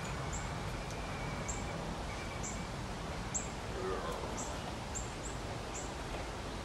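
Short, high chirps from a small creature, repeating about twice a second over a steady outdoor background hiss, with one small click about three and a half seconds in.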